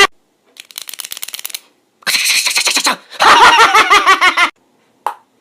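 A man's mouth-made imitations of object sounds: first a fast train of quiet clicks, then a noisy hissing rattle, then a loud voiced sound whose pitch wavers quickly up and down, with a short pause between each.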